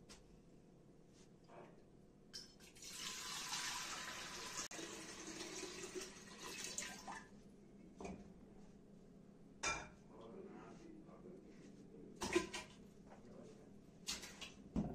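Water running from a kitchen tap for about four seconds, then a few scattered knocks and clinks of dishes and a metal pot.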